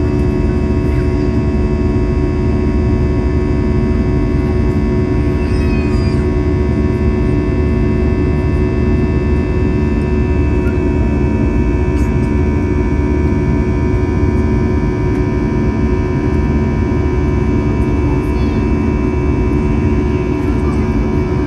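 Airbus A321-211's CFM56-5B turbofan at climb thrust, heard inside the cabin over the wing: a steady rumbling drone with a stack of steady buzzing tones from the fan.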